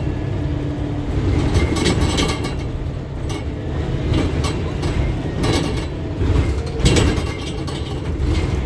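Inside a single-deck bus on the move: steady low engine and road rumble, with frequent irregular rattles and knocks from the body and fittings.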